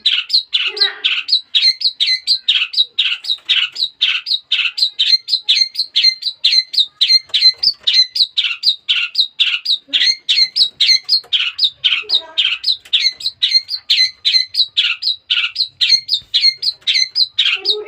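Young long-tailed shrike (cendet) calling in a fast, unbroken string of short repeated notes, about four a second: a young bird that has just begun to sing.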